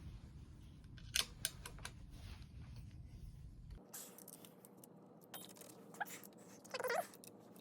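Scattered small metallic clicks and taps from hand tools and handlebar parts being handled as a Brompton folding bike's handlebar is taken off, with a short squeak near the end.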